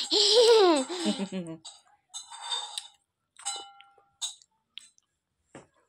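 A toddler's high voice in one loud drawn-out call that falls in pitch over about a second and a half, followed by scattered soft clicks and rustles from her eating.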